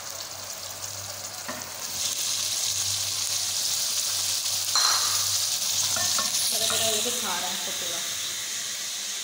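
Onion paste frying in hot oil in an aluminium pot, stirred with a wooden spoon. The sizzle gets louder about two seconds in, as chopped tomatoes go into the oil.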